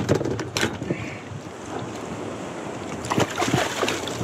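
Wind buffeting the microphone over water lapping at a kayak hull, with a few sharp knocks near the start and a quick cluster of them about three seconds in.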